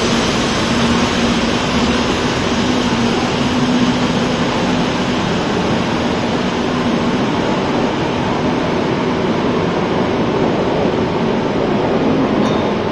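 Madrid Metro Serie 2000A electric train pulling away through an underground station: a steady, loud rumble of wheels and running gear, with a low hum that fades out about seven seconds in.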